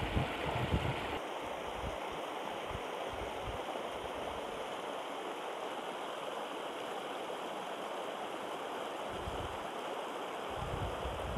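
Shallow river rushing steadily over rocks. Low rumbling bumps come in the first second and again near the end.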